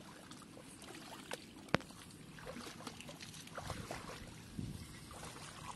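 Hands splashing and sloshing in shallow, weedy water, heavier in the second half, with a single sharp click a little under two seconds in.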